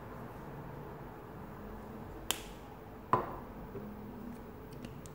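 Two sharp clicks a little under a second apart, the second louder with a brief ring, as a plastic spice shaker of black pepper is handled after sprinkling.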